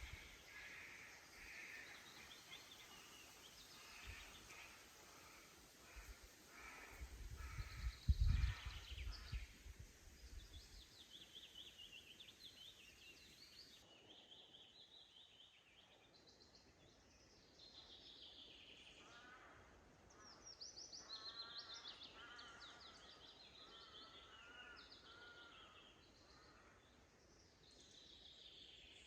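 Several songbirds singing, with repeated short notes and quick downward trills. A low rumble of wind on the microphone runs through the first ten seconds, with a loud low thump about eight seconds in.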